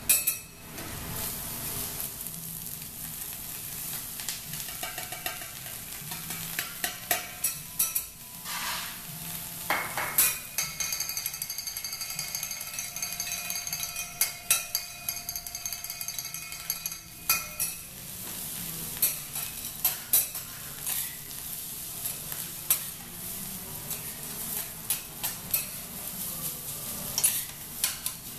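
Food sizzling on a teppanyaki steel griddle, with frequent irregular clicks and scrapes of metal spatulas on the hot plate. Several seconds of steady ringing tones sound about a third of the way in.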